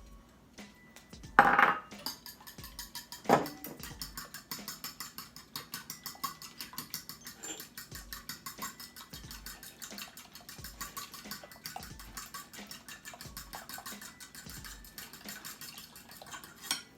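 Eggs and goat milk being beaten in a bowl: a utensil clicks against the bowl in a quick, even rhythm of about four strokes a second. There are two louder knocks near the start.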